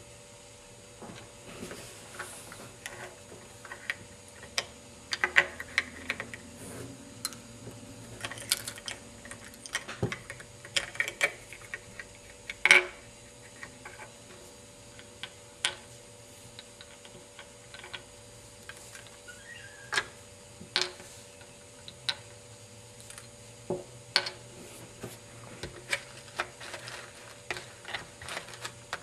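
Plastic Lego parts of a model garbage truck clicking and clattering as they are handled, with small toy bins tapped on a wooden table: irregular light clicks and taps, one louder knock about halfway through, over a faint steady hum.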